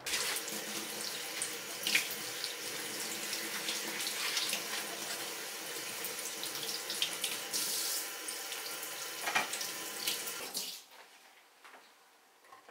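Kitchen faucet running water onto a head of cabbage held in a stainless steel sink, a steady splashing with a few louder spatters as it is turned under the stream; the water cuts off near the end.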